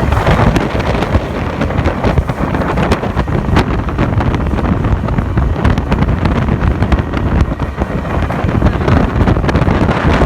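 Heavy wind buffeting the microphone on a motorboat underway, with the rush of the boat's motor and water underneath.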